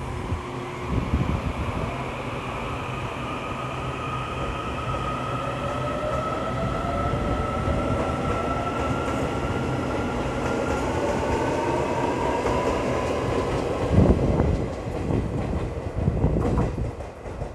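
Taiwan Railway EMU800 electric commuter train pulling along the platform, its traction motors whining in several tones that slowly climb in pitch as it gathers speed, over a steady rail rumble. About fourteen seconds in comes a loud clunk, then rattling of wheels over the track.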